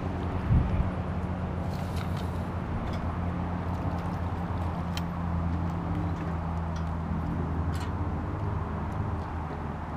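A steady low mechanical hum, like a motor running, throughout, with a heavy thump about half a second in and a few faint clicks.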